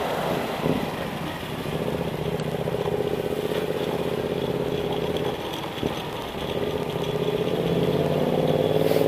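Bajaj CT100's single-cylinder four-stroke engine running while riding. Its steady note drops back about five seconds in, then climbs again as the bike speeds up.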